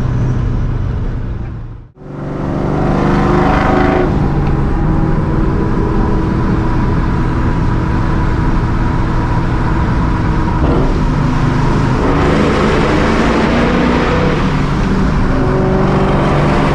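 Straight-piped, Vortech-supercharged 4.6-litre two-valve V8 of a 2004 Ford Mustang GT running on the move. The sound dips out briefly about two seconds in, comes back, and carries on loud and steady.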